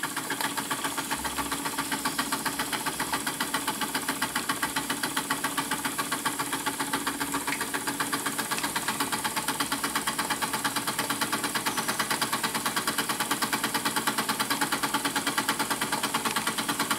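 Two small Retrol model steam engines, a horizontal engine driving a dynamo and a beam engine with a flyball governor, running together on their boilers: a rapid, even beat of exhaust and moving parts over a steady hiss.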